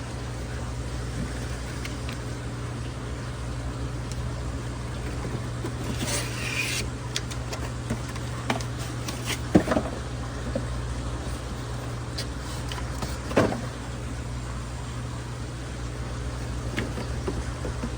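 Steady low hum of a fish room's running equipment, with scattered handling clicks and knocks of an air pump being unboxed. There is a short rustle of packaging about six seconds in and two louder knocks, one near the middle and one a few seconds later.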